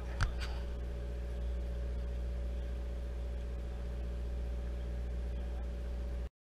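Sportfishing boat's engine running with a steady low drone, with one sharp click about a quarter second in.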